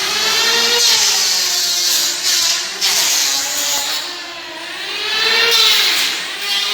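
Electric handheld power tool cutting, with a loud hiss; its motor pitch sinks and climbs in slow swells as it bogs under load and frees up again, twice.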